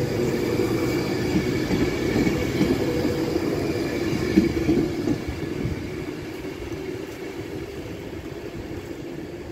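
Avanti West Coast passenger train running past the platform, its wheel-and-rail noise steady. From about five seconds in the noise fades as the rear of the train draws away.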